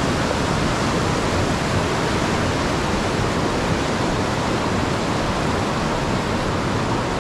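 Fast mountain river rushing over boulder rapids directly below a footbridge, a loud, steady whitewater rush.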